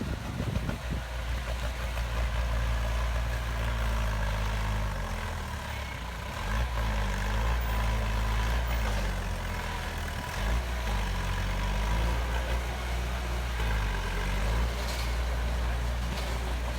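Heavy diesel engine of earthmoving machinery running under load, its pitch dipping and rising several times as the throttle changes.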